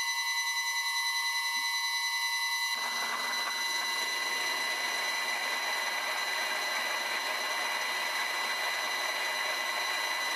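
Vintage Karger lathe turning at 170 RPM on a VFD-driven motor, with a steady high whine of several evenly spaced tones from the drive. About three seconds in, an 18 mm drill bit bites into the metal workpiece and a continuous cutting noise joins the whine as chips peel from the hole.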